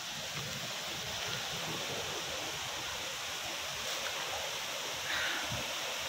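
Running water of a mountain stream and small waterfall: a steady rushing hiss.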